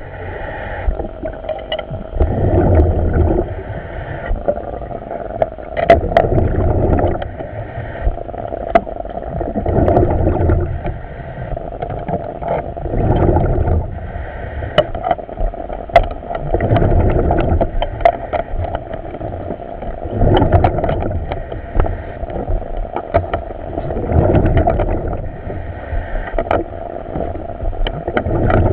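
Underwater diver's breathing heard over the helmet communications: a swell of exhaust bubbling and rumble about every three to four seconds, with scattered clicks.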